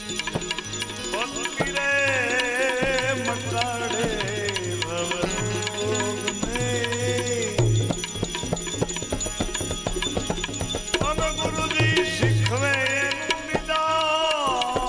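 Devotional bhajan music: a hand drum beating with jingling rattle-like percussion under a melody that wavers in pitch and comes in phrases.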